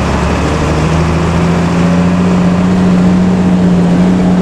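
Intercity bus's diesel engine running at steady revs, with its growling 'ngorok' exhaust: a deep, loud drone that rises slightly in pitch at the start, then holds steady.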